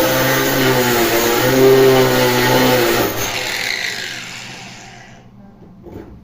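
Electric drill running under load as it bores into granite: a steady motor hum with a rough grinding noise. About three seconds in it is switched off and winds down over a couple of seconds.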